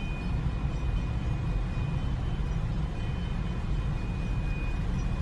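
Steady low rumble of a car idling, heard from inside the cabin, with a faint high-pitched tone coming and going.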